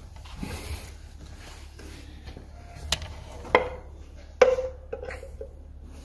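Metal clinks and knocks as a metal engine cover is handled and offered up to a Honda GL1500 flat-six engine: small clicks, then three sharper knocks about three, three and a half and four and a half seconds in, the last the loudest, each of the later two leaving a short metallic ring.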